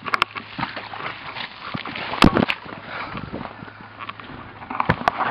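Rustling and clatter of a soldier moving through brush close to the microphone, with scattered sharp knocks; the loudest is a pair about two seconds in, and there are more near the end.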